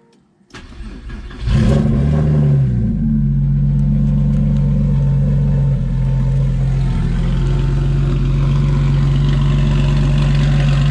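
Porsche 996's 3.4-litre flat-six engine turning over on the starter and catching about a second and a half in. It flares up briefly in revs, then settles into a steady idle.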